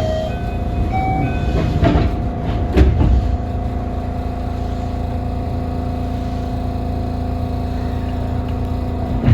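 JR West 207 series electric train motor car standing still, heard from inside: a steady electrical hum over a low rumble. A few short high beeps and a couple of thumps come in the first three seconds.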